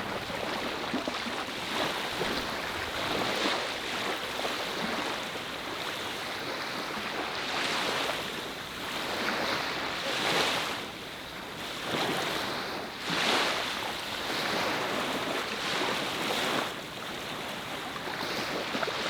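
Sea waves washing onto the shore, the surf swelling and falling away every few seconds.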